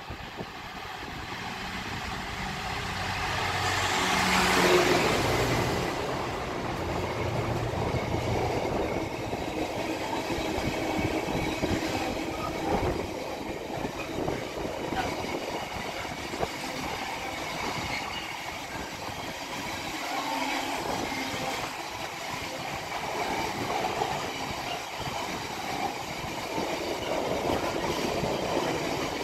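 Container freight train passing through at speed: the locomotive's engine builds to its loudest about four to five seconds in as it goes by. A long run of container wagons then rolls past with a steady rumble of wheels on rails.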